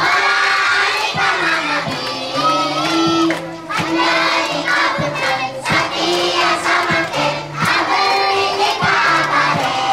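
A large group of children chanting and singing together in unison, with some shouting voices mixed in.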